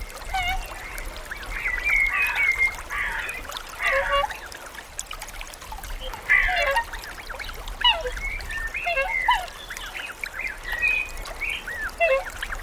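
A flock of birds calling together, many short overlapping calls and chirps.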